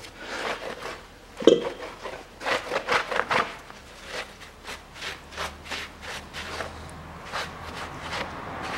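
A gloved hand scrubbing and wiping the combustion chambers of a Toyota Caldina 2.0 engine's aluminium cylinder head in short, irregular rubbing strokes, a few a second, cleaning off carbon loosened by a dimexide soak. A louder knock comes about one and a half seconds in.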